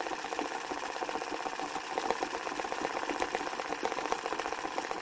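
Sewing machine running steadily while stitching embroidery, a fast, even run of needle strokes.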